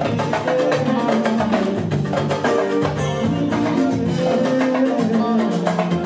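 Live band music with hand drums and keyboard: a dense, steady percussion rhythm under held keyboard notes.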